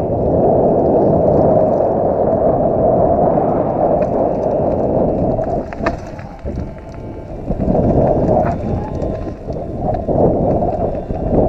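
Mountain bike descending a gravel forest trail: a loud, steady rush of wind on the action camera's microphone and tyre noise, with scattered clicks and rattles from the bike. It drops quieter for a moment around the middle.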